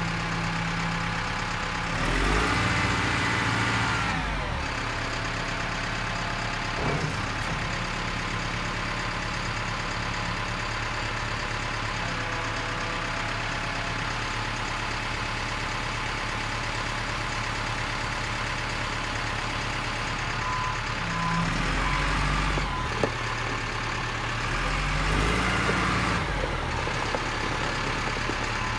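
Caterpillar 924F wheel loader's diesel engine running steadily, rising in revs a few times as the boom and bucket are raised and lowered: about two seconds in, and again in the last third.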